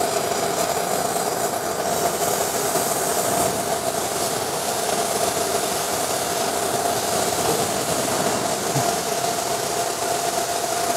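CNC router machinery running through an automatic touch-probe measuring cycle on a round disc: a steady whine with an even hiss underneath.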